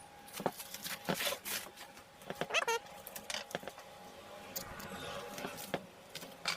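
Packaging being opened and handled: irregular clicks, crinkles and rustles, with a brief falling squeak about two and a half seconds in.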